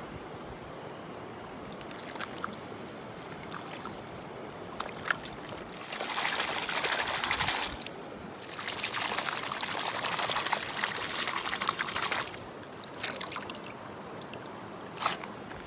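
Water flowing steadily in a stream, with two louder stretches of pouring or splashing water: one about six seconds in lasting under two seconds, the other from about eight and a half to twelve seconds. A few small clicks sound in between.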